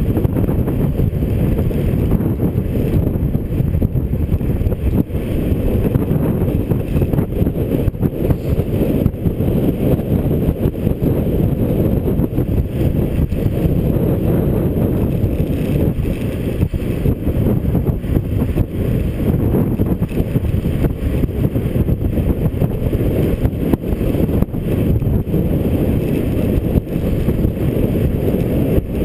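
Wind rushing over a GoPro's microphone while coasting fast downhill on a bicycle, a steady low rush with no breaks.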